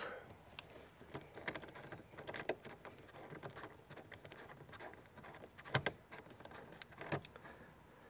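Hand screwdriver driving a Phillips screw into the metal bracket of a car door handle: faint, irregular small clicks and scrapes, with two sharper clicks near the end.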